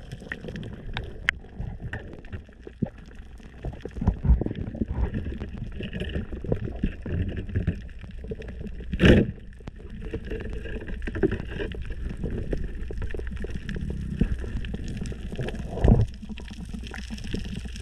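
Underwater sound heard through a camera housing while a diver moves along a reef: a muffled low rumble of water with faint scattered crackling and a few sudden knocks, the sharpest about nine seconds in and another near the end.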